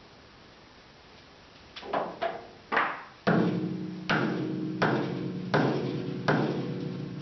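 Hammer blows on a steel fixture bolted to a Chevy truck door frame, straightening the hinge mounts so the hinge pins line up. Three sharp knocks, then five hard strikes about three-quarters of a second apart, each leaving the steel ringing.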